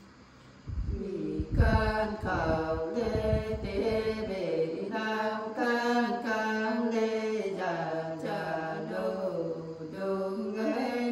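Unaccompanied Nùng folk singing by women's voices in a slow, chant-like style, with long held notes that bend and waver in pitch. It starts under a second in, with a few low thumps in the first few seconds.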